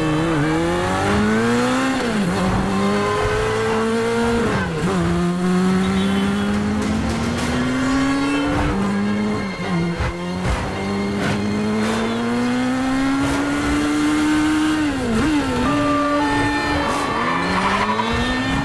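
Motorcycle engine revving hard under acceleration. Its pitch climbs through each gear and drops sharply at the shifts, several times over, with tyres squealing in the traffic around it.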